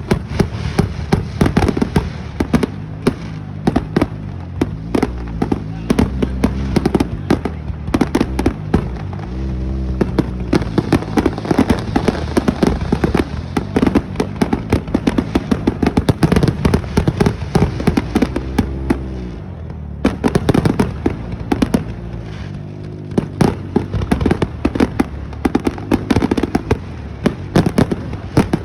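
Aerial fireworks going off in a rapid barrage, many sharp bangs a second over a continuous low rumble of booms.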